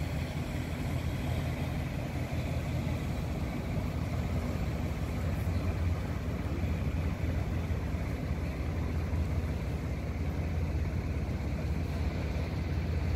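Ferry's engine running steadily with a low drone, under an even hiss of water and wind.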